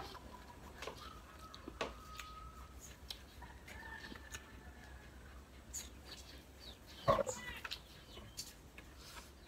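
Faint animal calls: thin drawn-out cries in the first few seconds and one louder call about seven seconds in. Small clicks of eating by hand sound under them.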